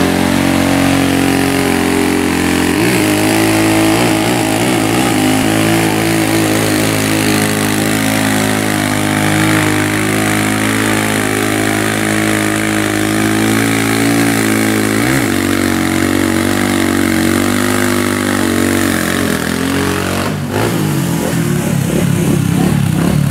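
Motorcycle engine held at high revs during a burnout, its rear tyre spinning on the asphalt. The engine note stays steady, wavers briefly a few times, then breaks off and turns unsteady near the end.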